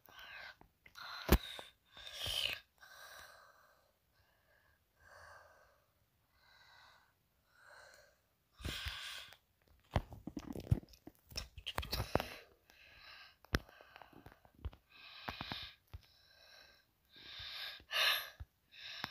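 Quiet whispering in short breathy phrases close to a phone's microphone, with several sharp taps in between.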